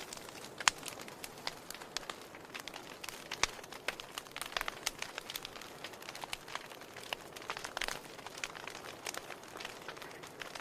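Wood fire crackling in a fireplace: irregular sharp pops and snaps over a soft steady hiss.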